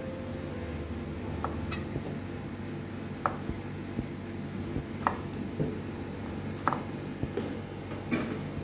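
Knife cutting a lime on a wooden chopping board: a few short, sharp knocks, one every second or two, over a steady low hum.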